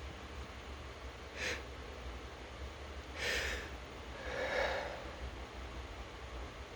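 A person fighting a lingering nose tickle after a sneezing fit, with no sneeze: a short sharp sniff about a second and a half in, a longer, louder sniff about three seconds in, then a breathy sigh a second later.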